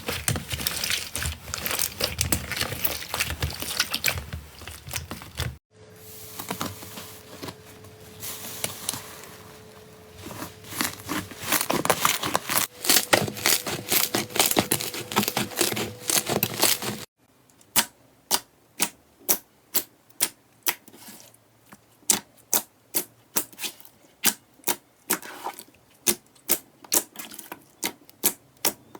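Slime being squeezed and pressed by hand, making dense crackling and popping. After a cut about 17 seconds in, it gives separate sharp popping clicks, about two a second.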